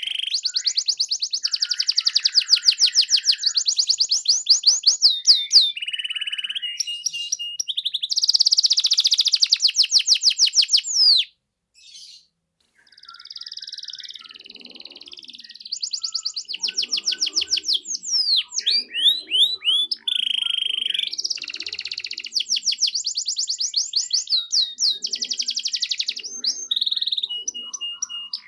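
Domestic canary singing a long, full song of fast high trills and rolls. The song breaks off briefly about twelve seconds in, then resumes.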